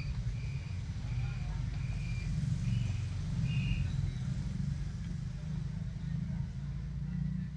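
A steady low rumble that drops away near the end, with several short, high squeaks from newborn puppies in the first four seconds.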